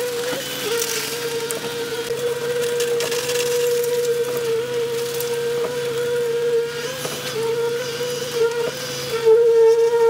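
Concrete-pouring machinery running steadily: a constant mid-pitched mechanical whine over a low engine drone, with a few short scrapes and knocks from shovels in the wet concrete.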